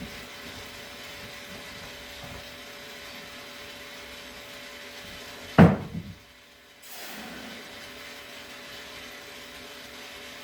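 Propane-type heating torch hissing steadily while bent stainless propeller blade tips are heated for straightening, broken about halfway by a single loud knock; the hiss drops away for about a second after it and then returns.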